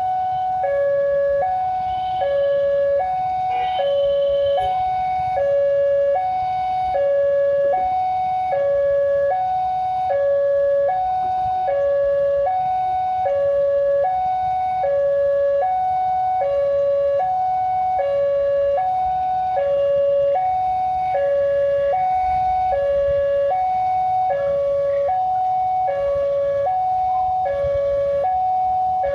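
Railway level-crossing warning alarm: an electronic two-tone signal alternating high and low about once a second. It is the warning that the crossing barrier is down for an approaching train. Under it runs the low rumble of waiting traffic.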